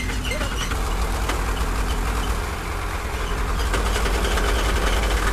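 Heavy diesel engine running steadily with a deep, even rumble.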